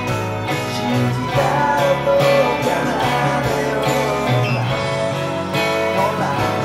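Fender Stratocaster electric guitar strummed and picked, playing along with a full-band pop-rock recording that includes a lead vocal.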